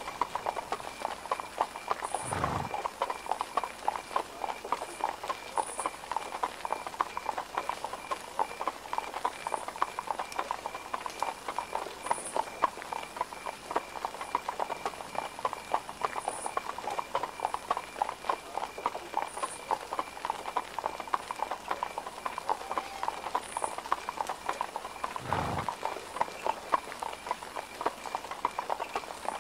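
Horse hooves clip-clopping steadily on cobblestones, a continuous patter of small hoof strikes. A low thump sounds twice, about two seconds in and again near the end.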